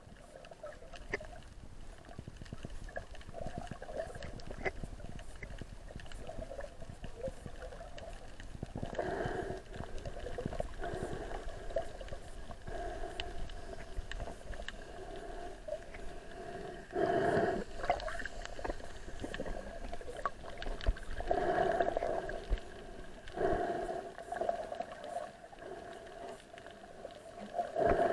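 Muffled underwater sound picked up by a camera in the water: a steady low hum with several louder swells of water noise.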